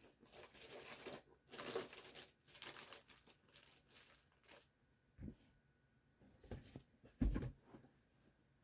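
Packaging rustling and crinkling as the unboxed RC truck is handled, followed by a few dull thumps near the end.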